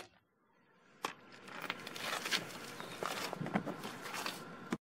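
Faint footsteps and scattered small clicks of handling over a low, even background hiss. A sharp click comes about a second in; no power tool runs.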